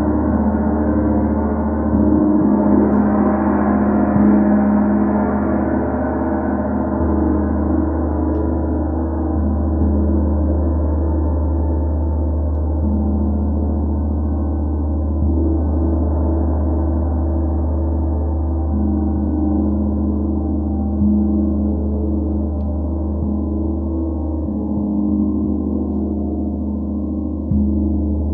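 32-inch Sri Yantra gong played continuously with Ollihess mallets: a sustained, shimmering wash with a deep low hum, swelling again with fresh strokes every few seconds.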